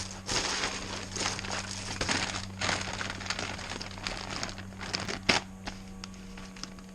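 Packaging of a replacement dryer wheel kit crinkling and rustling as it is handled, in irregular crackles over a steady low hum.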